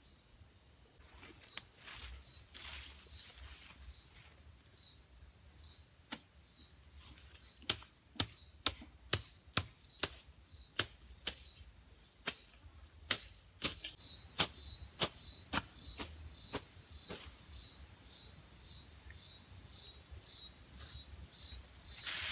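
Steady high-pitched insect chorus of rainforest crickets, with a run of sharp clicks at about two a second through the middle. The chorus gets louder about two-thirds of the way in.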